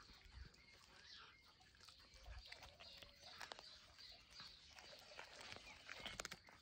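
A cat chewing on a piece of raw fish: faint, irregular wet clicks and smacks, with a few stronger ones near the end.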